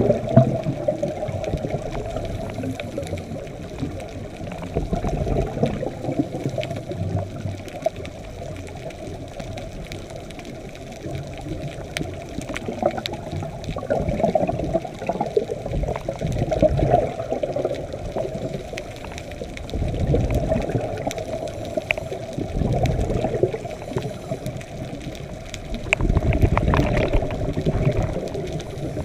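Underwater sound heard through a camera housing on a scuba dive: a muffled low watery rush of the divers' exhaust bubbles, swelling several times as breaths go out, with scattered faint clicks.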